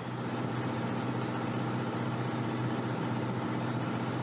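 A boat's engine running steadily, a low even hum.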